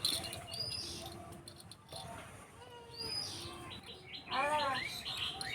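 Small birds chirping in the background, with short high chirps recurring every second or so. About four and a half seconds in there is a brief louder pitched call, which could be a voice or an animal.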